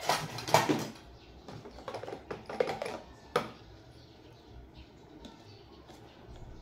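Handling noise from a fan motor and hand tools: a burst of clattering and knocking in the first second, a run of light clicks and taps, then one sharp click about three and a half seconds in.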